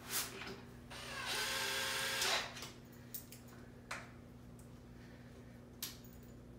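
Cordless drill driving a screw into a chair leg: one run of the motor whine lasting about a second and a half, starting about a second in, with a few light clicks and knocks of handling before and after.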